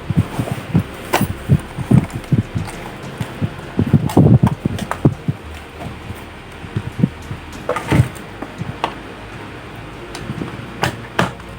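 Irregular handling knocks and bumps, with a few sharp clicks about a second in, around two-thirds of the way through and twice near the end, as the opened laptop and its power charger are handled.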